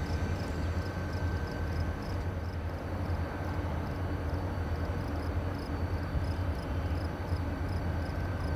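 EMD four-axle diesel-electric locomotive running with a steady low drone as it moves a string of freight cars slowly through the yard.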